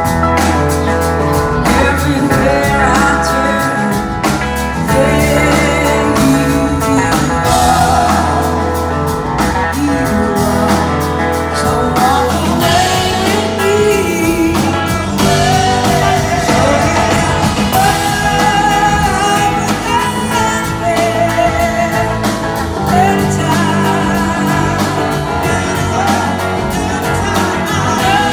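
Live blues-rock band with a horn section: a woman's lead vocal over electric guitars, bass, drums, and saxophone, trumpet and trombone, playing continuously, recorded from the audience.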